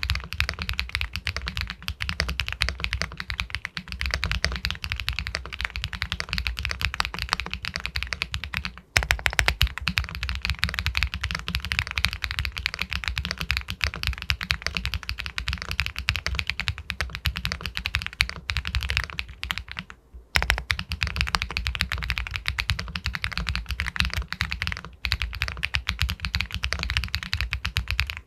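Fast, continuous typing on an Epomaker Galaxy 80 Pro aluminium mechanical keyboard with White Jade linear switches, dense key strokes with a pebble-like clack. The typing pauses briefly about 9 seconds in and again about 20 seconds in.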